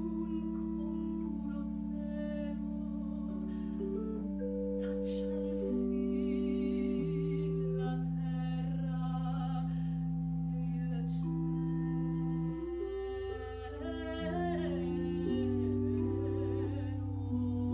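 A woman singing a slow classical aria with vibrato over long, steady held chords on a small chamber organ.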